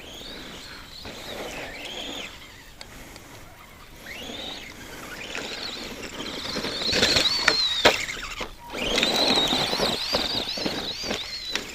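Arrma Granite 2WD electric RC monster truck running on dirt: a high motor and gear whine that rises and falls as it speeds up and slows, over the rush of tires on the ground. The truck is loudest in two runs in the second half, with a few sharp knocks.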